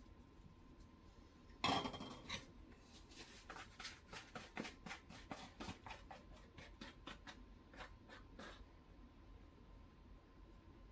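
Kitchen utensils clinking against dishes: a short clatter, then a run of light, irregular clicks at about three or four a second that stops near the end.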